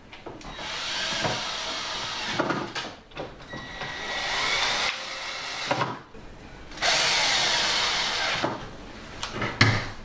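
Cordless drill-driver run in three bursts of about two seconds each, driving hinge screws as a cupboard door is refitted to its cabinet. A couple of knocks near the end.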